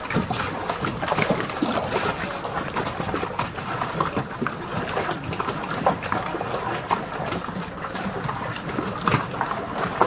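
Small waves lapping and splashing against the hulls of moored boats, a steady run of irregular slaps and gurgles of water.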